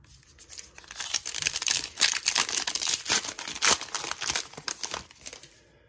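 A Topps Heritage baseball card pack's wrapper being torn open and crinkled by hand. It makes a dense run of sharp crackles that starts just after the beginning and dies away near the end.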